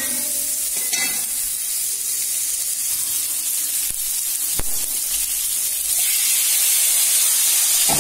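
Strips of salo (salted pork fat) sizzling as they render in a dry-heated frying pan, with a single sharp click about four and a half seconds in. About six seconds in the sizzling gets louder, as carrot strips go into the hot fat.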